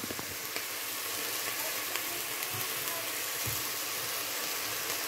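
Chicken pieces sizzling in a pot with soy sauce and oyster sauce, stirred with a wooden spatula: a steady crackling hiss with a few light clicks of the spatula.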